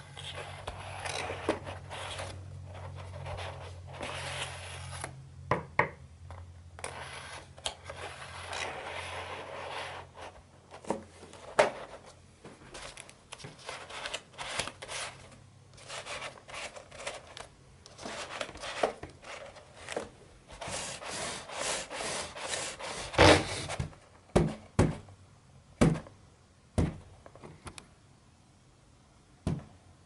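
Folded cardstock parts of an origami combination lock being turned and slid by hand: papery rubbing and scraping with small clicks. A few sharp knocks come near the end.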